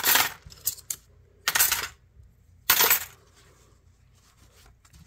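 Three short rustling bursts of a paper shop towel being handled and spread out, with a few light clicks of small steel knife parts being picked up.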